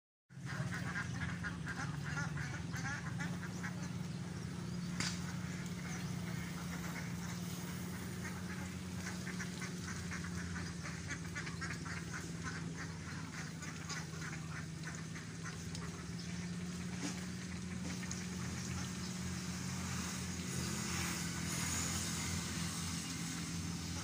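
Domestic ducks quacking in quick runs of calls, over a steady low machine hum.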